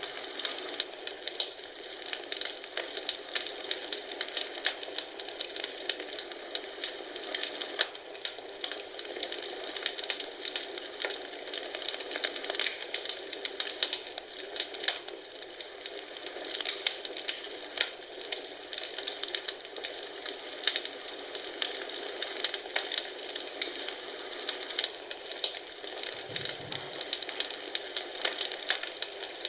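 Wood fire in a fireplace crackling: a steady, irregular stream of small snaps and pops over a soft hiss.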